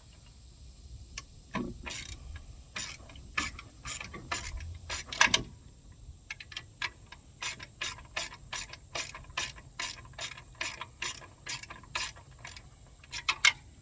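Hand ratchet wrench clicking in short, irregular runs of sharp clicks, denser from about halfway through, as a bolt holding a small engine's gas tank is worked loose.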